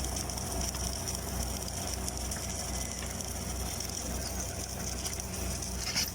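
LT-7 submerged-arc welding tractor running along a seam: a steady mechanical whir and hum with fine, rapid ticking, and one sharp click near the end.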